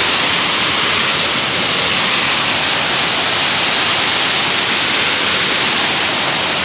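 A heavy curtain of falling water splashing down close to the microphone: a loud, steady, hissing rush.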